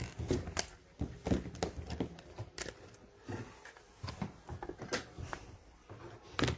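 Trading cards and their holders being handled on a tabletop: irregular light clicks and taps, about two or three a second.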